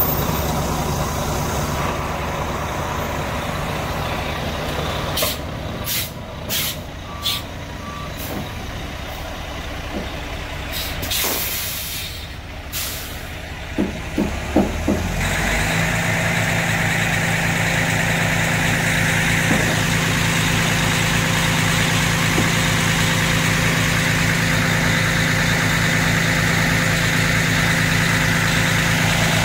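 Heavy truck's diesel engine idling, with a few sharp knocks and clanks through the first half. About halfway through the engine sound becomes louder and steadier.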